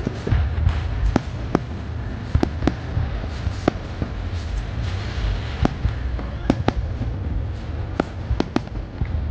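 Aerial fireworks display: a dozen or more sharp bangs at uneven intervals, over a steady low rumble.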